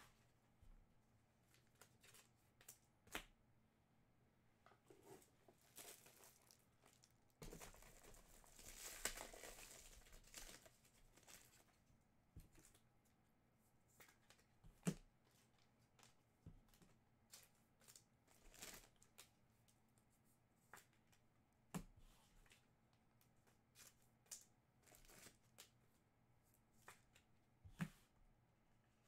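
Faint tearing and crinkling of trading-card pack wrappers, with one longer tear lasting a few seconds starting about seven and a half seconds in. A few light taps of cards and packs being handled.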